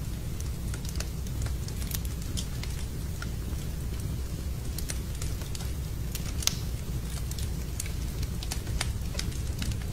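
Wood fire in a fireplace crackling, with irregular sharp pops and snaps over a steady low rumble; the loudest pop comes about six and a half seconds in.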